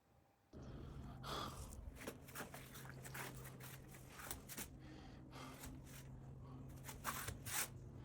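Handling noises, with irregular clicks, knocks and rustling, over a steady low hum that starts about half a second in.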